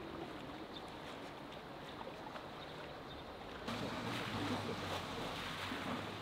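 Floodwater sloshing and splashing as people wade through it and scoop it out by hand. Louder and brighter splashing from just past halfway.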